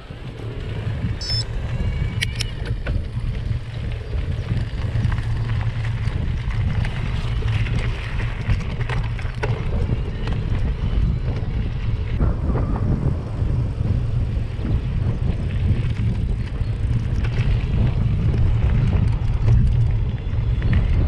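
Mountain bike riding on a dirt trail: tyres rolling over dirt and grit with the bike rattling, under a steady low rumble of wind on the microphone.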